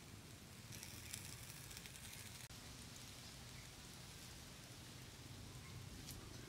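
Faint sizzling and crackling of marinated pork grilling on a wire rack over charcoal.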